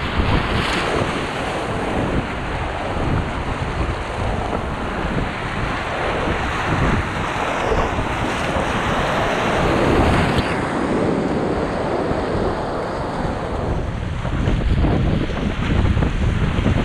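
Whitewater rapids rushing and splashing around a packraft, with water and wind buffeting the camera microphone as a heavy low rumble. About ten seconds in, the hiss loses some of its highest sound.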